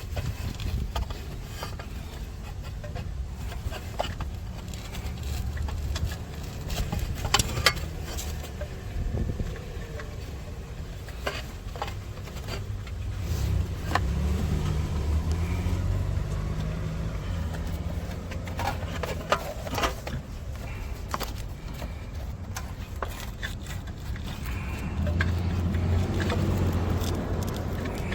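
Low, uneven rumble with scattered small clicks and taps of metal parts and tools being handled.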